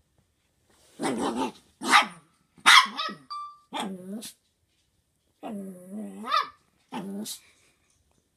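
Chihuahua barking and yapping at a cat, about seven sharp barks in a row. One longer, drawn-out bark rises in pitch at its end, shortly before a final bark.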